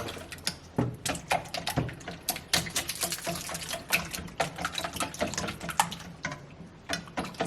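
Kitchen work: rapid, irregular clicks and knocks of utensils against dishes, with a watery, splashy quality, over a faint steady hum.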